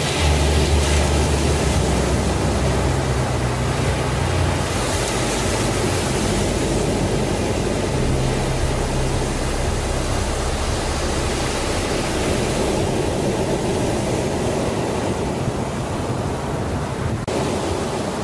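Ocean surf washing onto a sandy beach, a steady rush of breaking waves, over low sustained notes that change pitch every few seconds.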